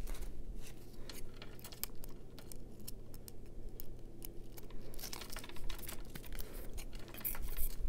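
Scattered light clicks and rustling from hands handling a paper tag with a small metal chain attached and picking up a pair of scissors. The clicks come more often in the second half.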